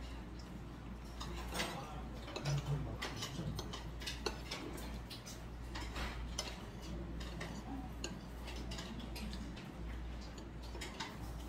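Eating at a table: scattered light clicks and taps of chopsticks and spoons against bowls and plates, over a steady low hum.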